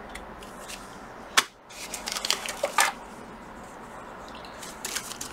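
Clear plastic bags holding brass photo-etch sheets crinkling and rustling as they are handled, with a sharp click about a second and a half in and a cluster of small crackles just after.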